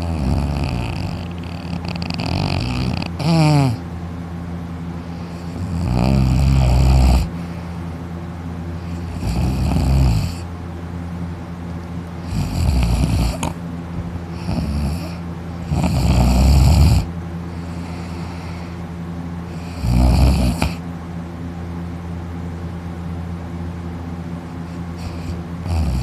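A person in deep sleep, lying on their back with mouth open, snoring loudly: a rattling snore with each breath, coming irregularly every few seconds. A steady low hum runs underneath.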